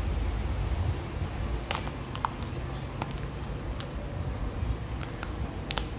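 Protective wrap being peeled off the back of a new smartphone: scattered small crinkles and clicks over a low handling rumble.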